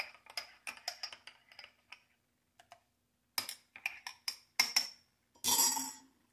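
Teaspoon clinking against a small coffee cup while stirring sugared Cuban espresso. A quick run of light clinks fades out over the first two seconds. A few louder ringing clinks follow, then a short burst of noise near the end.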